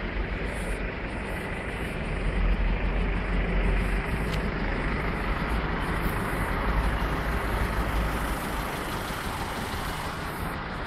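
Steady city street noise: a low rumble of road traffic, a little louder for a couple of seconds about two seconds in.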